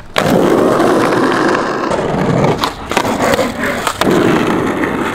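Skateboard rolling over concrete with its wheels rumbling steadily, broken by a few sharp clacks of the board about two and a half, three and four seconds in.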